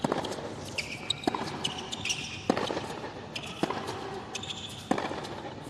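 Tennis rally on a hard court: the ball is struck back and forth, a sharp pop about every 1.2 s, five in all. Shoes squeak on the court between shots.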